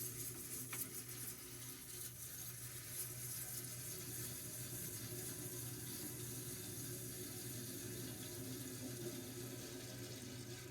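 Dehumidifier with a freshly defrosted coil, making a steady trickling, water-like hiss over a low hum.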